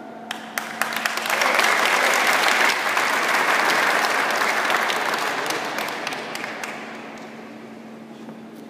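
Audience applauding: a few scattered claps at first, swelling into full applause about a second and a half in, then dying away over the last few seconds.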